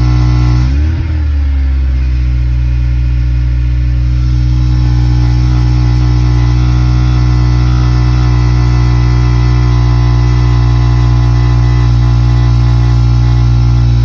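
Honda Accord Euro R (CL7) K20A four-cylinder running through a worn used Mugen muffler, held at a steady engine speed with a low drone; the pitch briefly rises and settles back about a second in. The owner hears a 'bebe' buzz from this exhaust at 1800–2000 rpm and suspects a broken weld in the center silencer.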